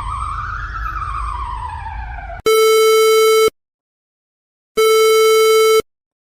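A siren wails, its pitch slowly rising and falling. It cuts off abruptly, and a harsh electronic alarm tone follows: two long steady beeps, each about a second long, with about a second of silence between them.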